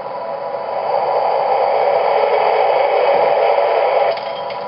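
Steady hiss from the MTH Railking R-17 subway model's ProtoSound 2.0 sound system, building over the first second and cutting off sharply about four seconds in.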